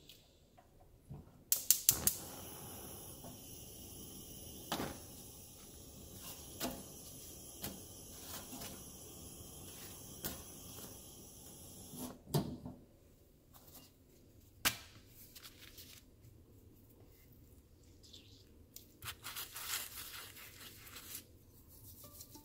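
Scattered sharp clicks and knocks of dishes and utensils being handled, loudest as a quick cluster about two seconds in, over a faint steady hiss for the first half.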